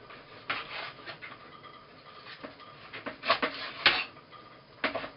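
Knife cutting raw, bony chicken into small pieces on a cutting board: irregular taps and scrapes, with a sharp click just before the four-second mark.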